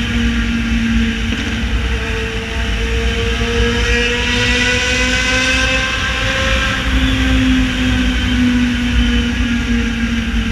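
Yamaha XJ6's 600 cc inline-four engine running loudly at fairly steady revs, its pitch wavering only slightly, over a low rushing noise. A higher whine swells and fades midway.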